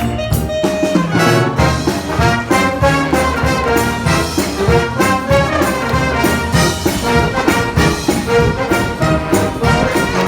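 School wind band playing, with trombones and trumpets prominent over a steady drum beat.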